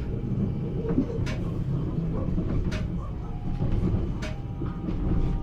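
Regional train running, heard from inside the carriage: a steady low rumble with sharp clicks about every second and a half.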